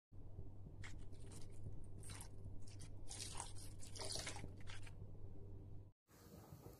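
Plastic packaging crinkling and crackling in a few irregular bursts as a seasoning is added to the pot, over a low steady hum; the sound cuts off abruptly near the end.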